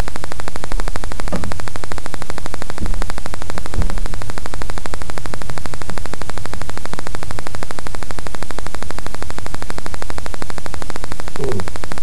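Loud, steady static and buzzing from a cheap, overloaded webcam microphone, drowning out everything else.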